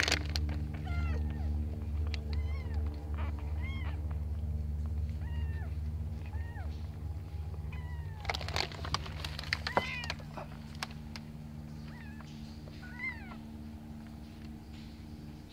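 Very young kittens, eyes only just opened, mewing: many short, high-pitched calls that rise and fall, one every second or so. A steady low hum runs underneath, with a few brief rustles about eight to ten seconds in.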